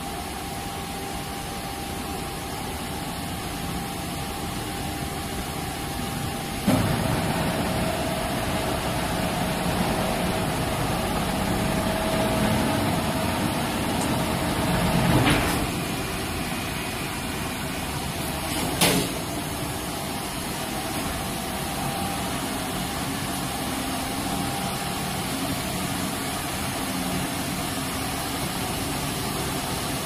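Steady machinery hum from a mobile cremation furnace. About a quarter of the way in, a clank starts a motor whine from the chain-driven loading tray, which runs for several seconds and stops with a knock about halfway through. A second sharp knock follows a few seconds later.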